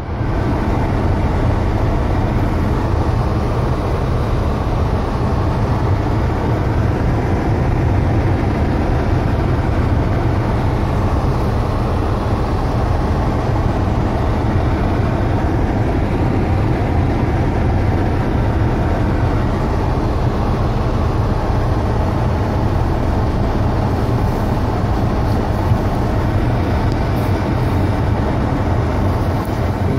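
Car driving, heard from inside the cabin: a steady low rumble of engine and tyre noise on a wet, snow-lined road.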